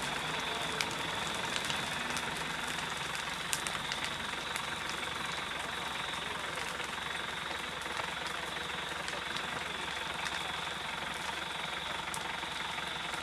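Dry grass burning in a field fire: scattered sharp crackles and pops over a steady rushing noise.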